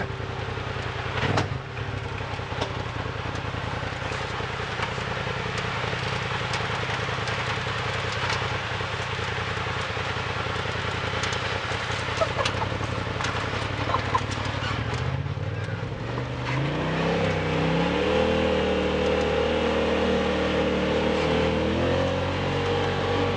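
Off-road vehicle's engine running at low, steady revs over a rough dirt trail, with scattered knocks and rattles from the bumps. About fifteen seconds in it revs up and then holds higher, louder revs.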